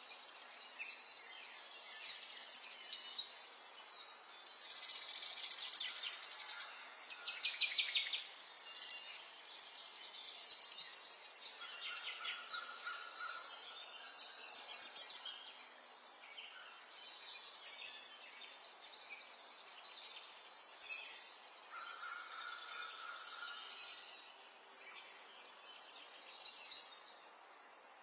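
Small songbirds singing and chirping in quick, high-pitched trills, one phrase after another, with a short steady whistled note twice. The loudest burst comes about halfway through.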